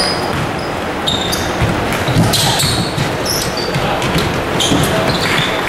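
Live basketball game sound in a gym: a basketball bouncing on the hardwood court, sneakers squeaking in short, sharp chirps, and spectator voices, all echoing in the hall.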